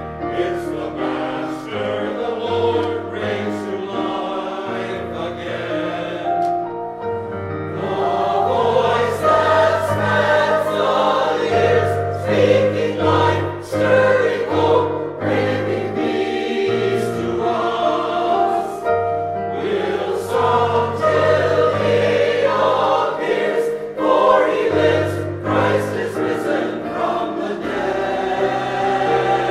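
A choir singing sacred music, sustained voiced notes moving through a melody over low bass notes.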